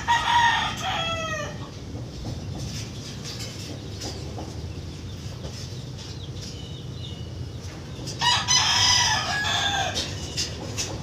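A rooster crowing twice: once right at the start and again about eight seconds in, each crow about a second and a half long and dropping in pitch at its end. A steady low background rumble runs underneath.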